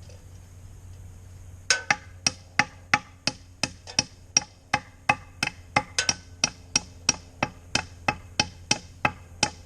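Hammer driving a nail into wood, steady blows at about three a second, starting a little under two seconds in.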